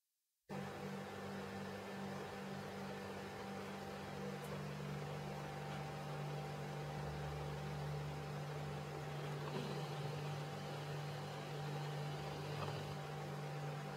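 A steady low hum with hiss that cuts in abruptly from dead silence about half a second in, then holds even with no rhythm or music.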